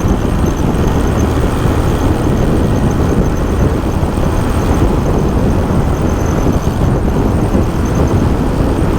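Steady wind rush and road noise from a motorcycle riding at speed, with the wind buffeting the microphone.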